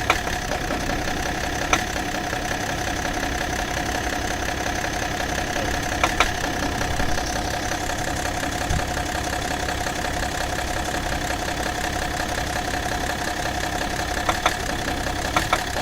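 BMW E53 X5's M57 straight-six diesel idling steadily, with an occasional sharp knock every few seconds, some in quick pairs. This is a rare knock of unknown origin.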